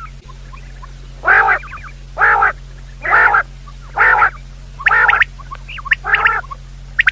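Quail calls: six loud nasal calls of several stacked pitches, about one a second, with faint short chirps between them. A steady low hum runs underneath.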